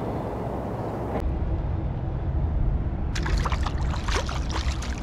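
Shallow water splashing and sloshing as a bream is released by hand at the water's edge, a quick run of splashes starting about three seconds in, over a steady low rumble.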